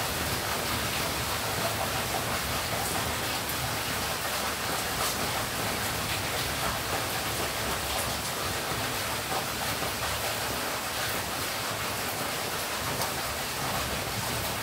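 Torrential rain falling steadily: a dense, even hiss of a heavy downpour, with scattered faint ticks of drops striking close by. The rain is heavy enough that it is taken for a cloudburst.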